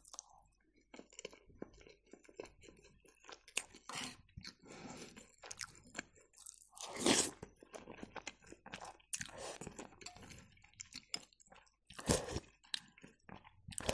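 A person chewing food close to the microphone: soft, wet crunching and small mouth clicks throughout, with louder crunches about seven seconds in and again near twelve seconds.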